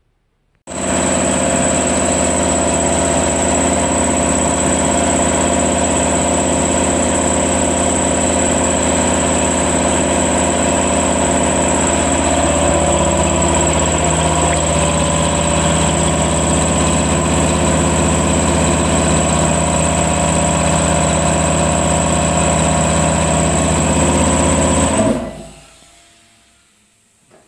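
Three-phase compressor switching on and starting at once, its motor and pump running steadily with a thin high whine, then shutting off by itself near the end and spinning down: the newly replaced pressure switch is working, starting the compressor and cutting it out.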